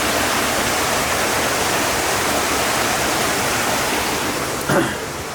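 Steady, loud rush of floodwater and rain. A short, sharper sound breaks through near the end.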